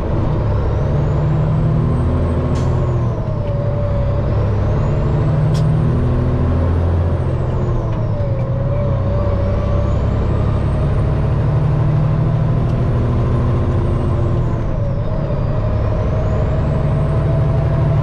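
Semi truck's diesel engine pulling hard through the gears, heard from inside the cab. A high whine climbs with the revs in each gear and drops sharply at each upshift, about three shifts in all.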